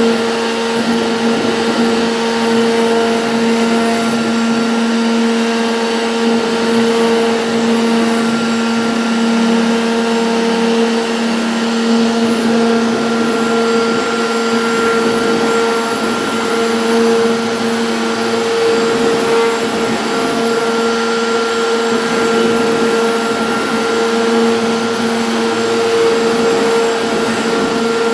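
CNC router spindle running steadily while carving MDF: a constant-pitch whine over the hiss of cutting.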